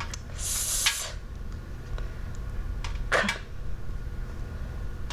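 A woman softly sounding out letter sounds: a drawn-out "sss" near the start and a short "k" about three seconds in, over a steady low hum.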